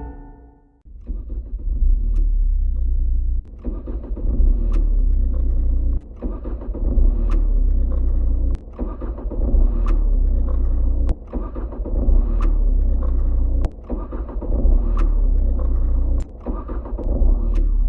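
A steady low rumble, engine-like, interrupted by a sharp click about every second and a quarter, with a short dip in level at each click so that it repeats like a loop.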